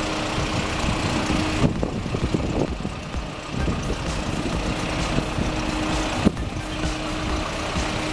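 2011 Isuzu NTM refuse truck's diesel engine running steadily, with two brief breaks in the sound.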